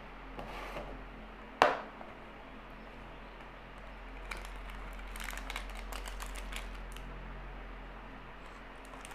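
A small clear plastic jewellery packet being handled and opened: a sharp knock about a second and a half in, then a few seconds of light crinkling and small clicks. A low mains hum runs underneath.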